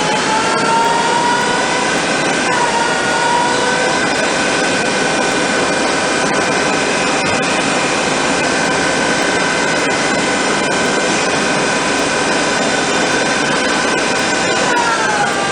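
ECL 360 CNC lathe running: a steady whine from the spindle drive over a continuous hiss. The pitch steps up twice in the first few seconds as the spindle speed changes, and falls away near the end.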